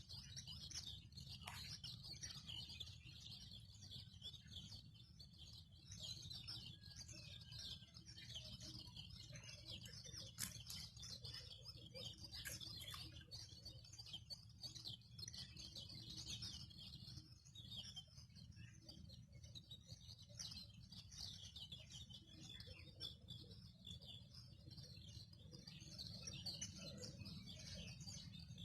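Faint chorus of small songbirds chirping and singing continuously, over a steady low background rumble.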